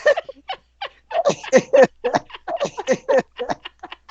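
People laughing hard in a rapid run of short, pitched bursts.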